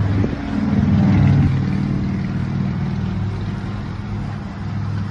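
Vehicle engine running, rising in pitch about a second in as it speeds up, then holding steady.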